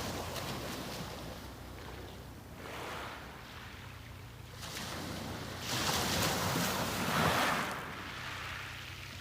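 Sea waves washing onto the beach, the surf rising and falling in surges, with a larger wave breaking and washing up about six seconds in. A faint steady low rumble runs underneath.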